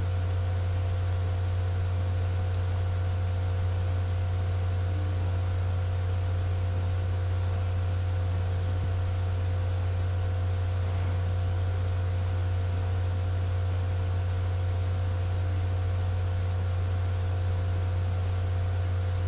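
Steady low electrical hum with a constant hiss and a few faint steady higher tones, unchanging throughout; no stirring or pan sounds stand out.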